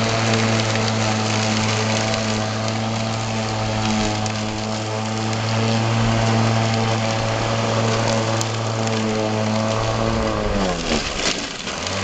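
Electric rotary lawn mower on a homemade remote-control robot mower, its motor and blade running with a steady hum over a hiss while cutting grass. About ten and a half seconds in the pitch drops sharply, then climbs back up near the end.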